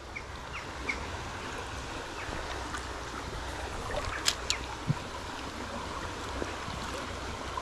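Shallow river water running steadily over rapids, with two sharp clicks about four seconds in.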